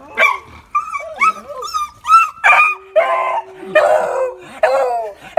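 Beagle howling and crying in excitement at greeting its owner: a quick string of short, high, wavering yelps, with a few louder, rougher howls in the middle.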